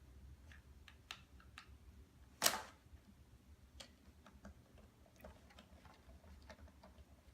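Light, scattered clicks and taps of plastic Play-Doh toy parts being handled, with one louder knock about two and a half seconds in.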